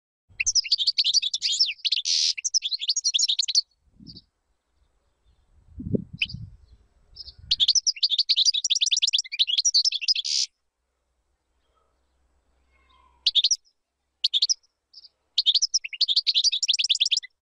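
European goldfinch singing: three bursts of fast, high twittering song, each a few seconds long, with a few short single calls between the second and third. A low thump comes about six seconds in.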